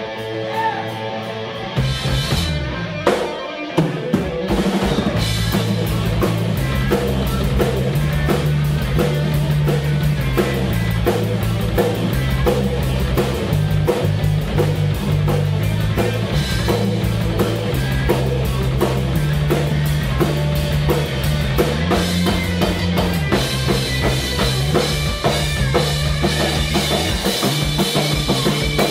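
Rock band playing live without singing: electric guitar, bass and a drum kit, with the drums coming in fully about four seconds in.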